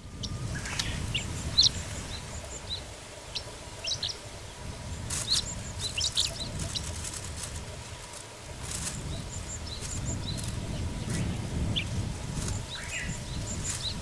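Chestnut-eared bunting calling and singing: short high chirping notes scattered through, with brief denser phrases about five to six seconds in and again near nine seconds, over a steady low rumble.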